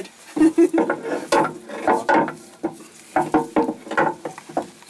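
A replacement Panhard rod on a Land Rover Defender being worked into its mounting bracket by hand: irregular metal knocks, clunks and scrapes as the rod and its bushed end bump against the axle and chassis.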